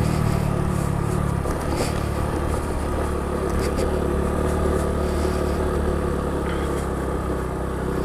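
Honda Pop 110i's small single-cylinder four-stroke engine running steadily at low speed while the bike is ridden, with road and wind noise.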